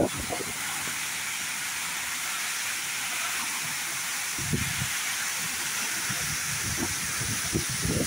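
Waterfall's steady rushing of falling water, heard close to the cascade and spray. From about halfway in, low buffeting on the microphone comes and goes, growing near the end.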